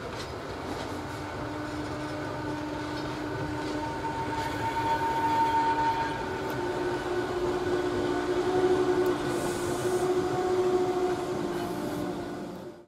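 Historic electric locomotive hauling a short train of goods wagons past at close range: a steady rolling rumble with a held whine, louder as the locomotive and wagons go by. It cuts off suddenly near the end.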